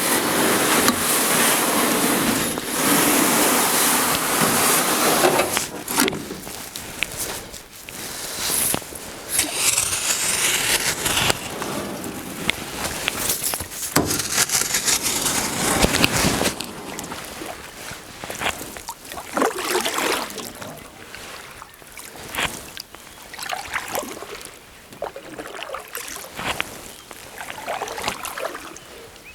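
Water sloshing and splashing: heavy for the first six seconds, then smaller irregular splashes.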